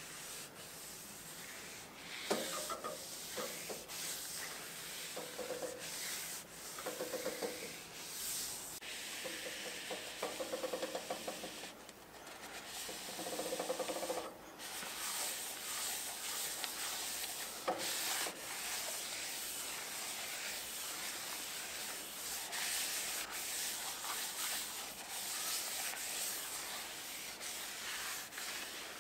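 Paper towel rubbing oil into a wooden bowl spinning on a wood lathe: a steady rubbing hiss, with short pitched squeaks now and then in the first half.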